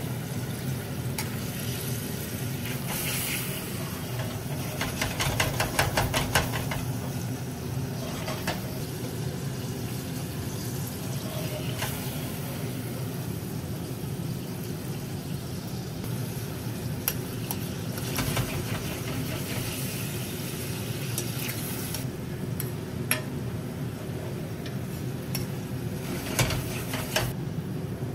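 Potato gnocchi sizzling in melted butter in a steel frying pan, with clinks and scrapes of a metal slotted spoon against the pans, over a steady low hum. A fast rattle of strokes comes about five seconds in, and the sizzle thins out about 22 seconds in.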